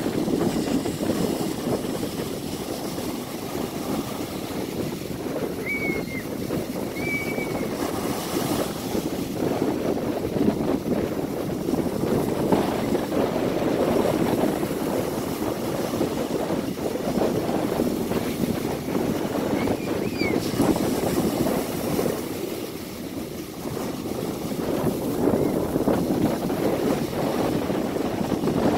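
Ocean surf breaking and washing up a sandy beach, a steady rushing that swells and eases with each wave. A few faint, brief high chirps sound over it.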